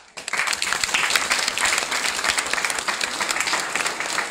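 Audience applauding, breaking out suddenly just after the start and keeping up a dense, steady clapping.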